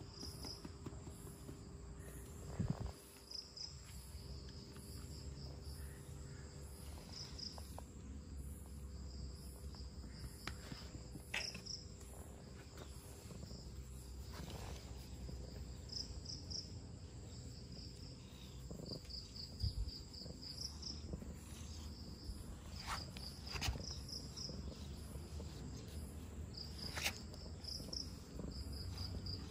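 Insects chirping: short high-pitched pulses repeating in clusters throughout, with a few sharp knocks about 3, 11, 20, 24 and 27 seconds in.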